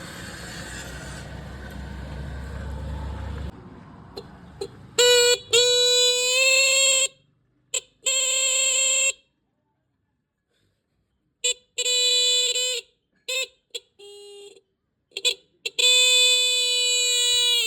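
Old motorbike electric horn being sounded in a string of blasts of one buzzing pitch. Some are quick taps and some are held for a second or two. A low, steady rumble comes before the first blast.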